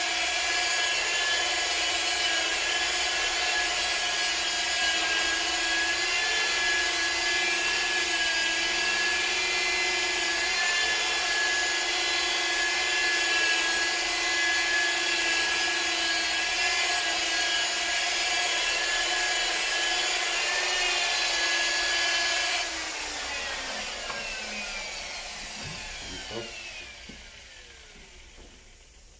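Rotary car polisher running at a steady speed as it cuts paint with compound on a foam pad. About three-quarters of the way through it is switched off and spins down, its whine falling away.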